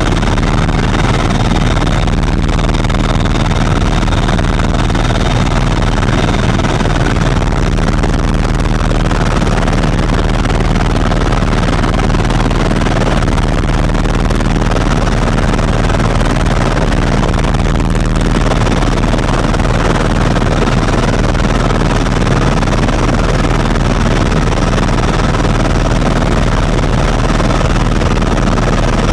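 Steady, loud cabin noise of a Eurocopter EC130 ECO Star helicopter in cruising flight: turbine engine and rotor running with a constant low drone, heard from inside the passenger cabin.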